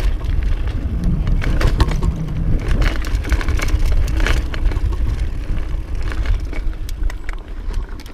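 Mountain bike rolling down a dirt trail: tyres crunching over gravel and rock with many sharp clicks and rattles, over a low rumble of wind on the microphone. It gets quieter near the end as the bike slows to a stop.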